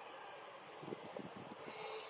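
Quiet outdoor ambience with a faint, steady, high-pitched insect drone and a few soft low thuds about a second in.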